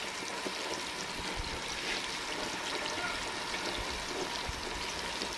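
Floured chicken pieces deep-frying in a wide wok of hot oil: a steady sizzle with fine crackling as the oil bubbles around the coating.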